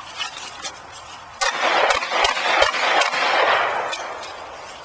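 A Glock pistol firing a rapid string of shots, starting about a second and a half in, each shot ringing with echo: a shooter running a USPSA stage against the shot timer.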